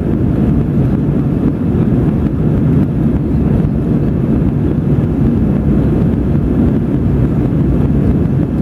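Steady low roar of an Airbus A320's engines and rushing airflow, heard inside the passenger cabin during the climb after takeoff.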